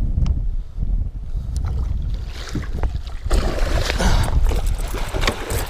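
A hooked muskie thrashing and splashing at the surface beside the boat as it is netted, with loud splashing water from about halfway in. Wind rumbles on the microphone throughout.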